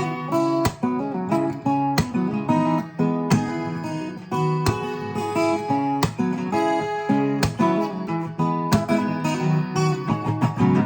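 Acoustic guitar music: plucked and strummed notes played continuously.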